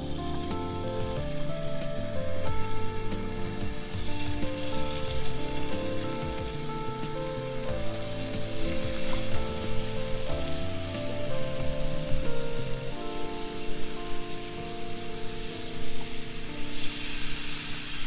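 Calm background music with steady chords, over the even hiss of food sizzling as it fries in a skillet on a grill.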